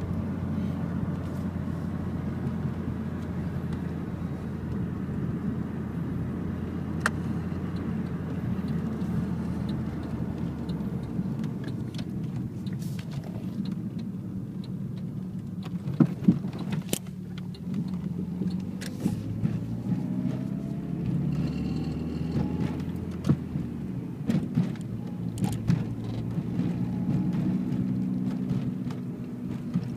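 Car engine and road noise heard from inside the cabin while driving. The engine note steps down about a third of the way in, and a faint rising tone follows around two-thirds of the way through. A few sharp knocks come from the camera being handled.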